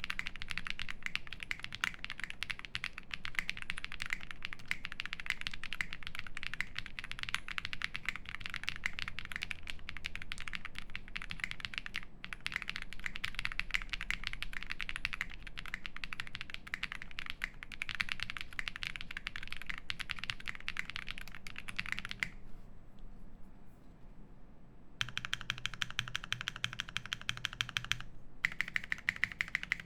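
Fast typing on a plateless, foam-filled Thera75 mechanical keyboard with lubed Zaku switches and GMK keycaps: a dense run of keystrokes. About 22 seconds in it pauses briefly, then comes a quick, evenly spaced string of keystrokes before normal typing resumes near the end.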